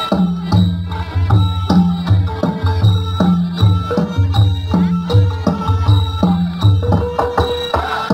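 Khmer traditional dance music from a drum and pin peat ensemble, played to a steady beat of deep drum strokes under a melodic line.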